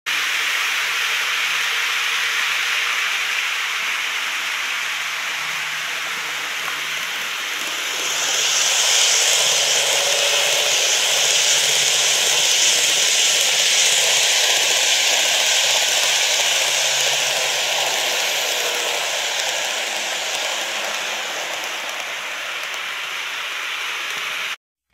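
N-gauge model electric train running past on its track, a steady rolling rush with a faint motor whir. It grows louder about eight seconds in as the train comes by, then eases off over the last few seconds.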